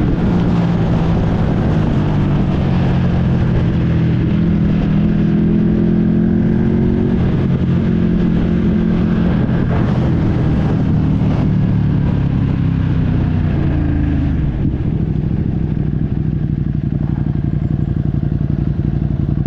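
Ducati Streetfighter V2's 955 cc L-twin engine running under way, its pitch slowly falling as the bike slows, then settling to a steady pulsing idle about fifteen seconds in.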